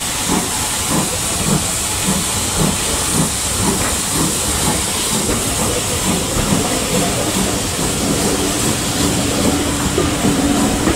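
Steam-hauled train pulling out of a station, heard from aboard: a steady hiss with low beats about twice a second, and a steady low tone joining in over the last few seconds.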